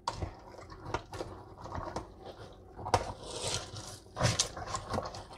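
Thick vegetable soup mixture of frozen corn, mixed vegetables and tomato sauce being stirred in a stainless steel cooker pot: irregular wet squelching and scraping, with a few short sharp knocks.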